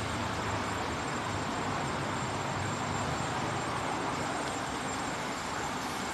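Steady background ambience: an even hiss with a faint low hum and no distinct events.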